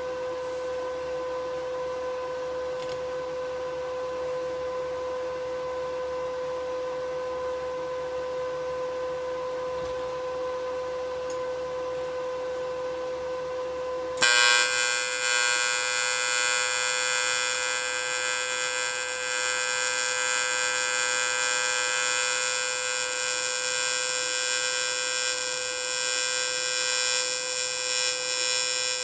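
TIG welder humming with a steady tone, then about halfway through the AC arc strikes on aluminum and a loud, high buzzing arc sound starts and continues as a bead is run.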